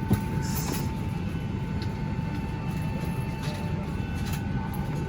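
Steady low rumble and hum of a Boeing 737-800's cabin at the gate, with a thin steady whine over it and a sharp click just after the start.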